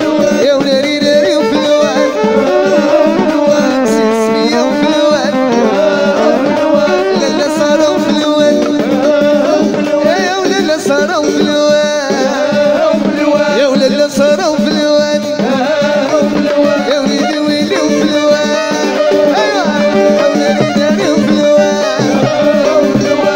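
Modern Moroccan chaabi music: a band playing a winding melody over driving hand-drum percussion.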